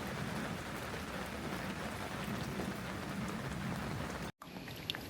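Steady rain falling, an even hiss. It drops out for an instant near the end and comes back lighter, with separate drips ticking.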